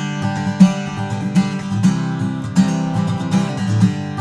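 Takamine PTU200 SP-K dreadnought acoustic guitar with a koa top being strummed, with chords restruck about every half second to second. The koa top gives a forward, punchy midrange, as its player describes it.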